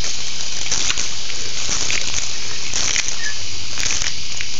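Water pouring from the open end of a garden hose and splattering on concrete, a steady hiss with a few faint ticks, as the hose drains.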